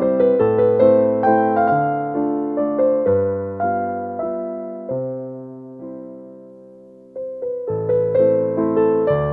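Background music: slow, gentle solo piano or electric piano, single notes struck and left to fade, with a long decaying pause about two-thirds of the way through before the notes resume.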